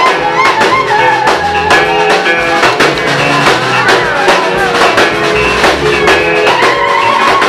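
Live band music with drum kit and guitar playing a steady beat, with singing.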